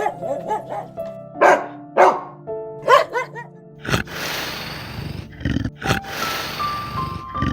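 A dog barking repeatedly in short, pitched barks over background music. About four seconds in it gives way to a loud, rough, hissing noise.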